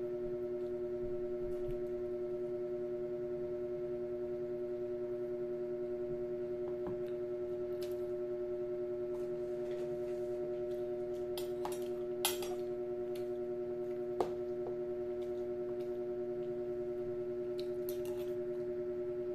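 A metal spoon clicks and scrapes against plastic food containers a few times, loudest about twelve and again about fourteen seconds in, over a steady hum held at several fixed pitches.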